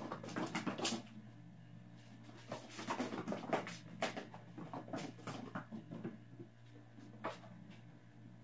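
Lykoi kitten's paws pattering and a rubber flip-flop skidding and tapping across a hardwood floor as the kitten pushes it, in two bursts of quick taps: one in the first second and a longer run in the middle.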